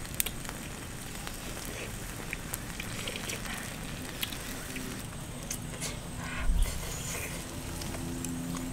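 Charcoal fire under a wire grill of whole crabs, crackling with scattered small pops and clicks as the crabs roast. A single low thump comes about six and a half seconds in.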